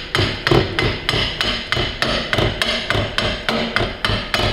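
Rapid, even hammer taps on metal, about four light blows a second, as a part is tapped onto a Ferguson TEA20 PTO shaft during reassembly.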